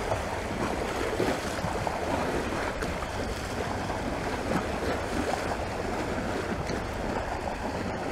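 Small waves on Lake Garda lapping and washing against the rocky shore, a steady wash of water with no single loud splash.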